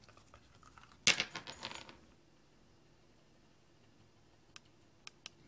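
A small hard object dropped onto a ceramic tile floor, hitting with a sharp clatter about a second in and skittering briefly, followed by three faint ticks near the end.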